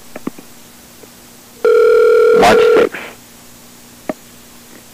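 Telephone ringback tone of an outgoing call heard over the line: a single steady ring lasting just over a second, with a few clicks and a faint low hum on the line.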